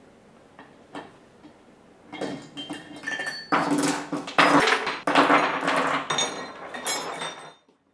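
Steel rocker arms and rocker shafts clinking and clattering against each other and the bench as they are handled. A few light clicks come first, then about two seconds in a dense run of ringing metal-on-metal clatter that stops abruptly near the end.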